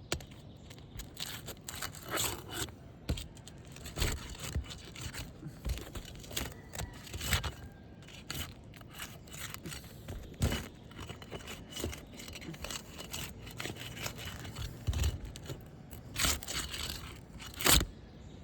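Asphalt roof shingles being pried up and worked loose: irregular scraping, crackling and sharp clicks of the gritty shingle surface and its sealed tabs, with two louder snaps near the end.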